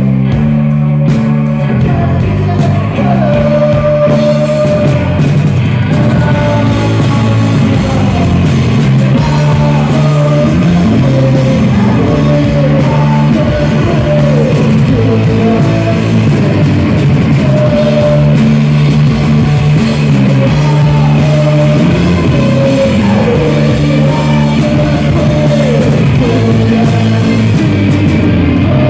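Live rock band playing loudly: electric guitars and a drum kit, with a male singer's vocal over them.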